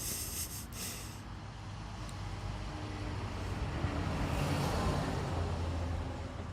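A motor vehicle's engine passing by, a low rumble that grows louder to a peak about five seconds in and then fades. Brief hisses come in the first second.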